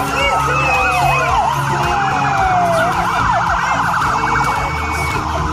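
Several police motorcycle sirens sounding together: slow falling wails overlap a fast yelp in the middle, over the low hum of the motorcycles' engines.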